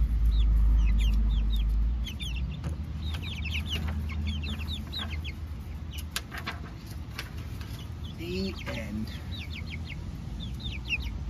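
Young chickens peeping in quick runs of short, high calls that slide downward, going on throughout, with a low rumble over the first two seconds.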